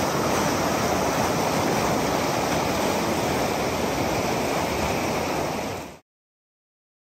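Swollen, fast mountain stream rushing over rocks in whitewater, a steady rushing noise from high water. It fades out and cuts to silence about six seconds in.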